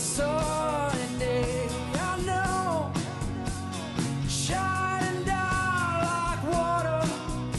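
Band playing a mid-tempo rock song, with strummed guitar and drums keeping an even beat under a sliding melody line that may be voice or lead guitar.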